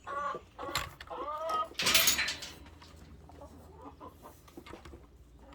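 Domestic chickens clucking, a few short calls in the first second and a half, with a brief loud noise about two seconds in.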